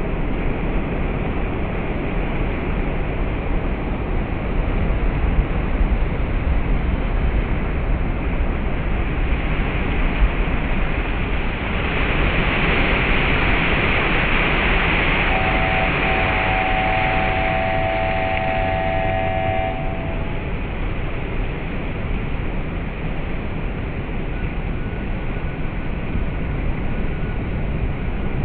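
Heavy Pacific surf pounding a rock breakwater: a continuous roar of breaking waves and churning white water, swelling as a big wave bursts over the rocks about twelve seconds in. A steady high tone sounds faintly for a few seconds in the middle.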